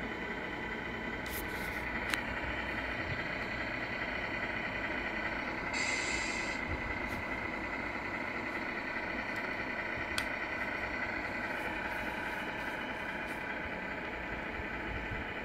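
Electronic sound unit of a 1/14 Tamiya Scania R/C truck playing a steady simulated diesel engine idle through its small speaker. About six seconds in there is a short hiss lasting under a second, with a few sharp clicks elsewhere.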